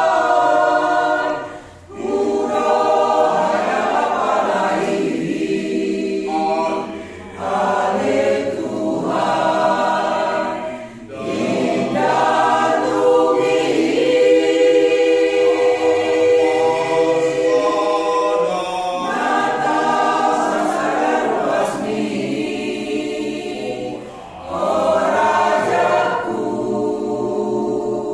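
Mixed choir of men's and women's voices singing a Batak Toba church song unaccompanied, in sustained phrases broken by a few brief pauses for breath.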